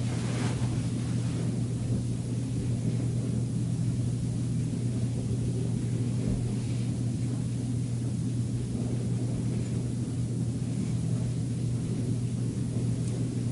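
A steady low hum and rumble that holds at one level throughout, with a brief faint rustle at the very start.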